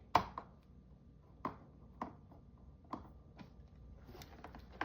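Scattered light clicks and taps of hands working on a Roomba robot vacuum's plastic housing and its screws while it is taken apart, about eight or nine sharp ticks at irregular spacing.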